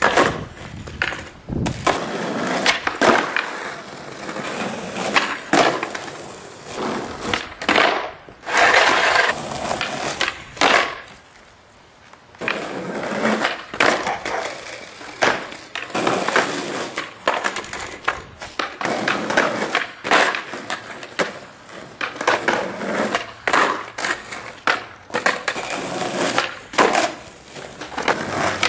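Skateboard wheels rolling on rough asphalt, broken by many sharp clacks of tail pops, board flips and landings as flatground tricks are tried, with a short lull about twelve seconds in.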